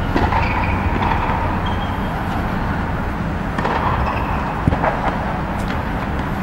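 Steady low hum of the blower fans that keep an air-supported tennis dome inflated, with a few faint sharp knocks, the clearest about two-thirds of the way through.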